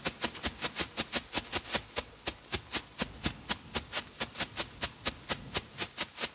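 Nico Strobe Flash strobe fountain firework burning with a rapid, uneven run of sharp pops, about seven a second, each pop going with a flash of the strobe.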